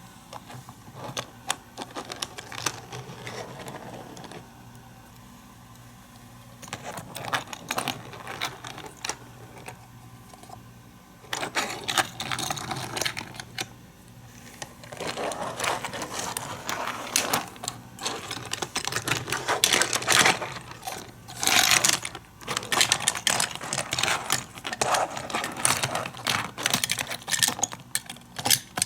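Hot Wheels die-cast toy cars rattling and clicking along plastic playset track, in irregular bursts of clatter that come thicker and louder over the second half.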